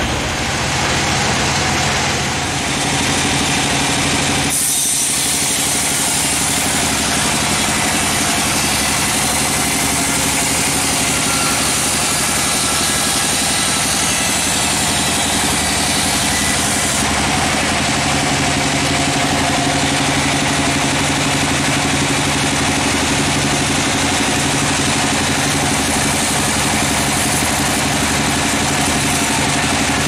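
Band sawmill running, its blade cutting lengthwise through a log: a steady machine drone with a dense hiss, the sound shifting about four and a half seconds in.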